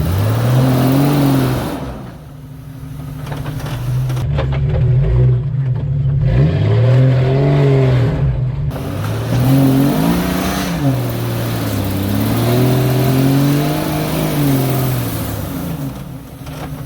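Off-road Jeep's engine revving, its pitch rising and falling several times.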